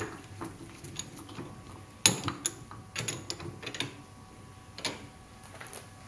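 Scattered metal clicks and knocks of parts and tools handled on a stainless steel workbench and bench vise, the loudest knock about two seconds in and a quick run of clicks around three to four seconds.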